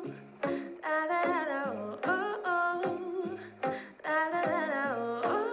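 Background music: a plucked-string accompaniment with a woman singing or humming a wavering melody over it.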